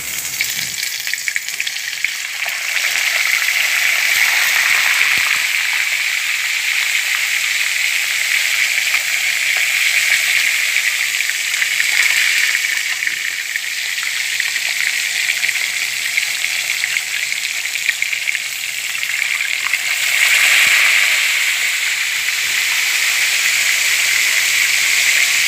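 Whole tilapia frying in hot cooking oil in a pan: a loud, steady sizzle that starts as the fish goes into the oil and grows louder about three seconds in, swelling again briefly near the end.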